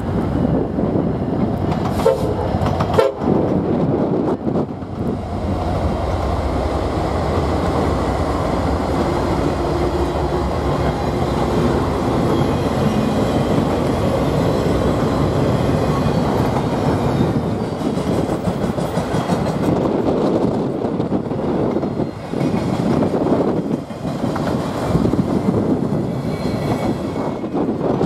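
Norfolk Southern eastbound intermodal freight train passing close by: the lead diesel locomotives, an EMD SD70M-2 and two GE Dash 9-44CWs, run past in the first half, then the double-stack container cars roll by with their wheels clattering over the rail joints.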